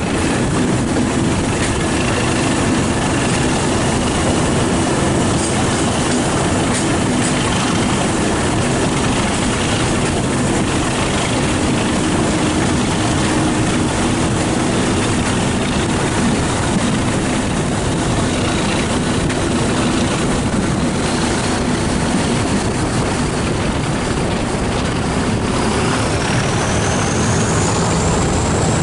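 Class 37 diesel locomotive 37714's English Electric V12 engine working steadily under power ahead of the train, heard from an open carriage window over the running noise of the train. Near the end a high turbocharger whistle rises in pitch.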